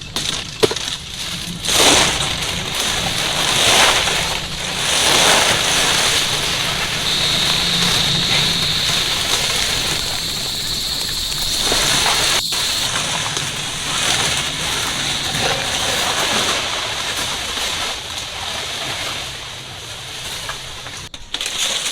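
Water sloshing and splashing in repeated surges.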